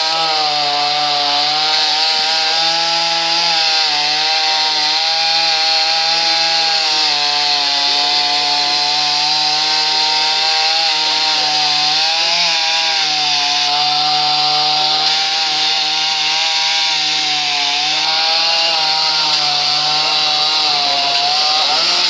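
Chainsaw running at full throttle while cutting into wood, its pitch wavering slightly up and down as the chain bites.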